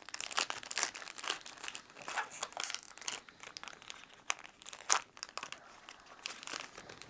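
Foil trading-card booster pack wrapper crinkling in the hands as it is opened, with a run of irregular crackles and one sharper crackle about five seconds in.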